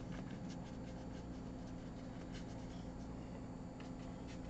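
Paintbrush scrubbing and dabbing acrylic paint onto a canvas: faint, irregular scratchy strokes over a steady low hum.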